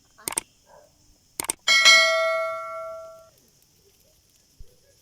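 A few light knocks, then a piece of metal struck once, ringing with a clear bell-like tone that fades away over about a second and a half.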